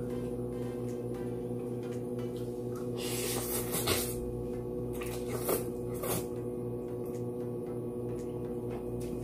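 A mouthful of sweet-potato glass noodles slurped in about three seconds in, followed by a couple of short wet chewing smacks, over a steady low hum.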